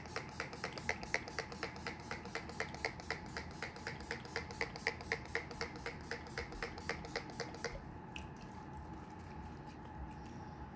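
Rapid, even pumps of a fine-mist setting-spray bottle (NYX Bare With Me Prime Set), about four short hissing sprays a second, stopping about eight seconds in.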